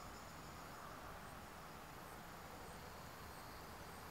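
Faint outdoor ambience: a steady low hiss with a short high chirp repeating about every three-quarters of a second, typical of an insect such as a cricket.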